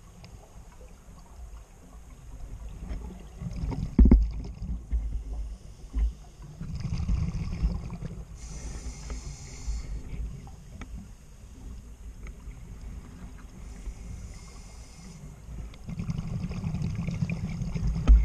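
Scuba diver's regulator breathing, heard underwater: a hiss on each inhalation alternating with a low rumble of exhaled bubbles, in slow cycles. Two sharp knocks sound about four and six seconds in, the first being the loudest moment.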